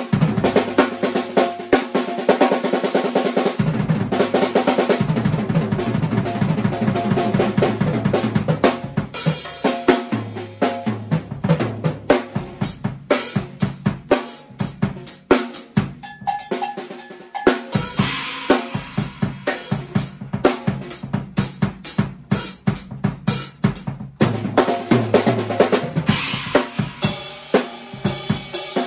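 An acoustic drum kit played solo: quick runs of snare and tom strokes over the bass drum, with cymbal crashes ringing out at several points.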